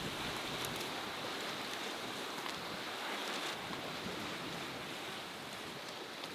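Sea waves washing against a rocky shore, a steady rushing noise that slowly fades out.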